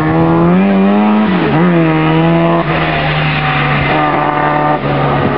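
Turbocharged Fiat 126p race car's engine revving hard under acceleration, its pitch dropping briefly and climbing again about a second and a half in and once more near the end.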